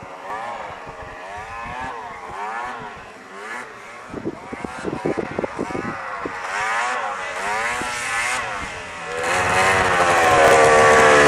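Snowmobile engines revving up and down over and over, the pitch rising and falling. From about nine seconds in, a much louder engine close by revs hard.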